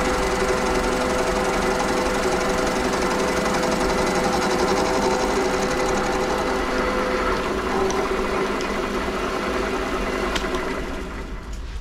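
WM210V variable-speed bench lathe running with its chuck spinning, a steady machine hum with a pronounced whine. The sound drops away near the end.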